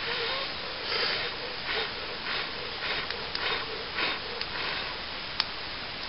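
Repeated puffs of breath blown into a small twig-burning stove to fan the fire, coming in a rhythm of roughly one every two-thirds of a second, with a few sharp crackles from the burning twigs.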